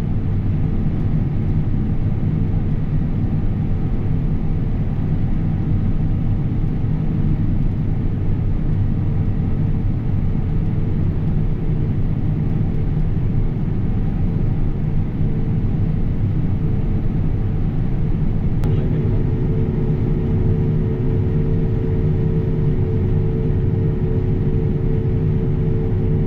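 Steady low engine rumble of harvest machinery running at constant speed. About two-thirds of the way in, a steady whine sets in on top of it.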